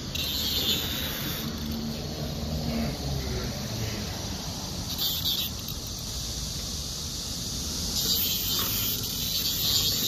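Cicadas singing in the trees: a shrill, high chorus that swells about five seconds in and again near the end, over a steady low background rumble.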